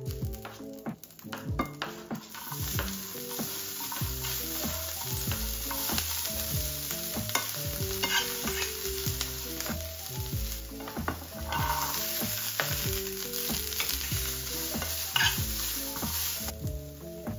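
Chopped spring onions, onion and green beans sizzling as they fry in a frying pan, with a utensil stirring them; the steady frying hiss comes in about two seconds in.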